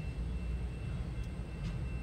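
Low, steady rumble of a freight train of autorack cars rolling past a grade crossing, heard from inside a stopped car, with a few faint clicks.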